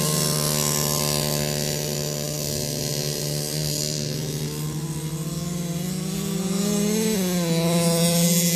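30.5cc two-stroke petrol engine of a 1/5-scale RC car running at a steady buzzing pitch, revving up about six seconds in, dropping briefly, then climbing again near the end.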